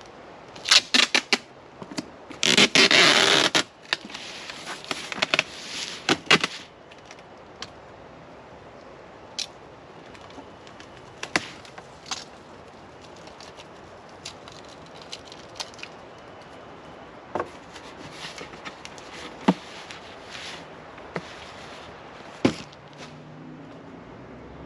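Packaging and small parts handled by hand: a loud rustling scrape about three seconds in amid a cluster of clicks, then scattered single clicks and light knocks.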